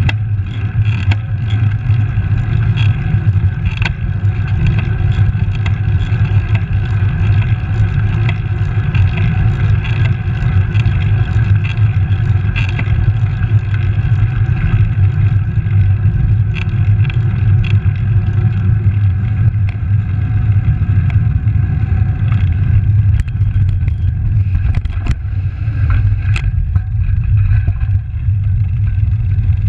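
Wind buffeting the microphone of a handlebar-mounted camera on a moving road bike, a steady low rumble mixed with tyre noise on the road. A few sharp clicks and knocks come near the end as the bike rolls onto a rougher surface.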